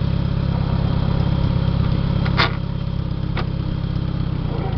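International 140 tractor engine idling steadily. Two sharp metallic clicks come about a second apart, midway through, from the gear shifter being worked to get into first. Getting into first is a struggle because the shifter rod is a little short and does not fully engage the shift fork.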